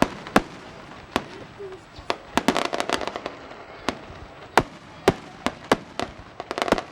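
Fireworks display going off: irregular sharp bangs and cracks, with quick clusters of crackling about two and a half seconds in and again near the end.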